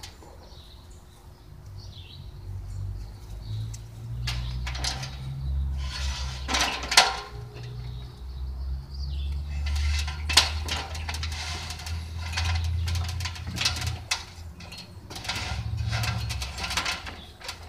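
Lattice panel scraping, rattling and knocking against a wooden fence and an aluminium extension ladder as it is lifted and hung, with a sharp knock about seven seconds in and another about ten seconds in. Birds chirp faintly in the first few seconds, and a low rumble runs underneath.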